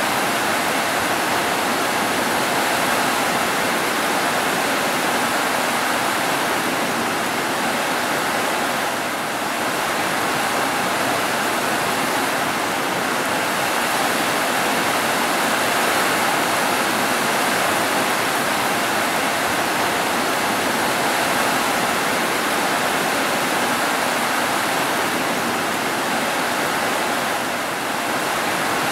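Heavy rain pouring down on roofs, a steady, even wash of noise with no thunder.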